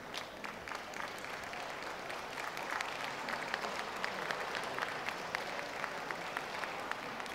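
Audience applauding, a steady patter of many hands that builds about three seconds in and eases slightly near the end.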